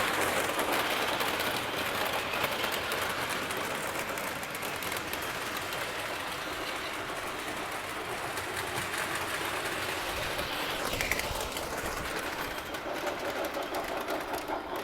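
Lionel O-gauge Camelback toy steam locomotive running on the layout track: a steady electric-motor whir and wheel-on-rail rattle, easing off a little in the first few seconds as the train is slowed.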